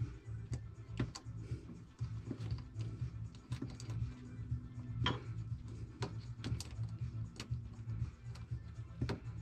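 Irregular small clicks and taps of hands handling a plastic boat depth transducer fitting and its cable, over a steady low hum.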